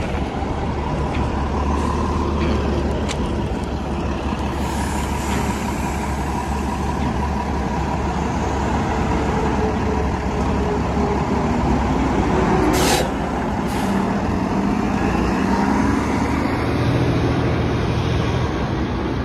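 New Flyer Xcelsior city bus rumbling at a stop, then a short sharp hiss of air from its brakes about 13 seconds in as they release. The bus then pulls away, its engine note rising as it accelerates.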